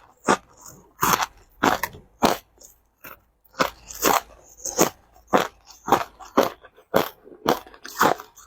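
Crushed ice being chewed and crunched between the teeth, close to the microphone: a steady run of sharp crunches, about two a second, with a short pause partway through.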